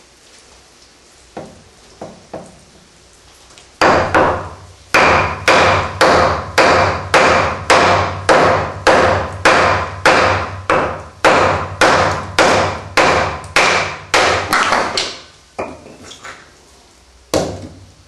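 Batoning a Fox Trakker kukri-style knife (6 mm thick N690Co steel blade) through a log: a wooden baton strikes the blade's spine to drive it down through the wood. After a few light taps, the blows come evenly at about two a second for some ten seconds, then a few weaker knocks and one last hard blow near the end.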